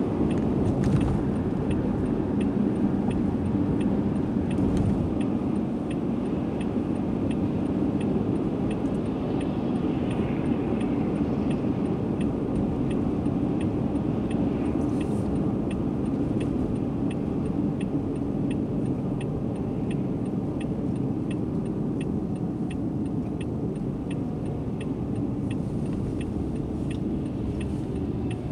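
Steady road and engine noise inside a car's cabin while driving on a highway. A regular light ticking, about twice a second, joins from about a third of the way in.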